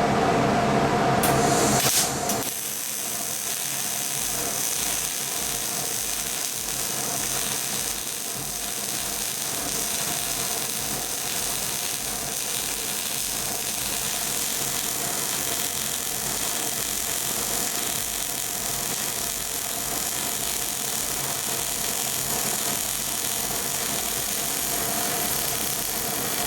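Brief music that cuts off about two seconds in. Then a steady hiss with a faint high whine: the Rail Bull welding carriage running along its guide rail while it welds, its welding arc and small drive motor going together.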